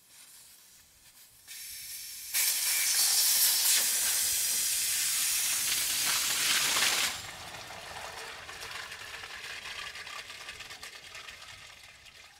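Test water gushing out of a PVC drain line as an inflatable test plug is pulled from a wye fitting. A loud rushing spray starts about two seconds in and lasts about five seconds, then drops to a weaker flow that slowly fades as the pipe drains.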